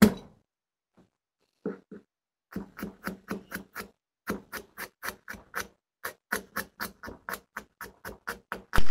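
Chef's knife mincing garlic on a wooden cutting board: a single sharp smack as the clove is crushed under the flat of the blade, then runs of quick, even chopping knocks, about five a second.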